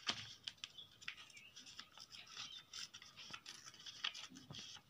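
A sheet of paper being handled and creased by hand: quiet, irregular rustling and scratchy strokes of fingers rubbing along the folds.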